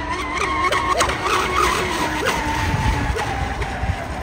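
Twin brushless electric motors of a radio-controlled boat running with a steady high whine that slowly falls in pitch as the boat goes by.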